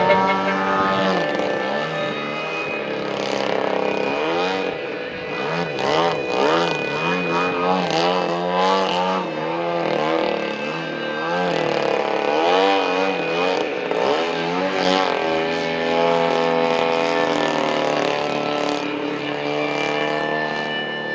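Engine and propeller of a radio-controlled Yak 54 aerobatic model plane flying overhead. Its pitch rises and falls over and over as the throttle changes through the manoeuvres.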